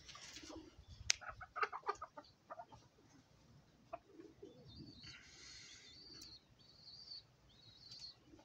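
Chicken clucking, with a quick run of short clucks about a second in. Thin high chirps follow in the second half.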